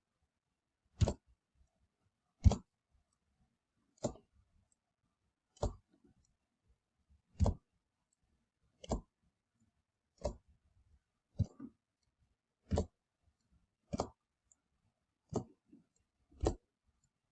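Sharp single clicks at a fairly even pace, about one every second and a half, twelve in all, each a quick double tap.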